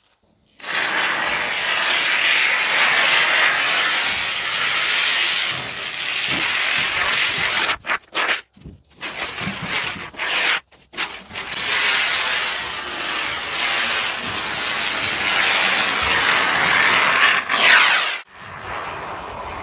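Aerosol can of polyurethane mounting foam hissing as foam is run from its straw nozzle along the floor-to-side joint of a trailer bed to seal the gap, with a few brief pauses in the middle. It stops shortly before the end.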